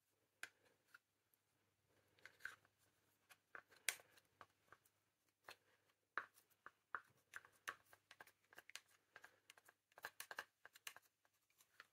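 Faint, irregular sticky clicks and crackles of wooden craft sticks scraping and dabbing wet paint in a glass baking dish, with fingers pulling tacky paint off a stick.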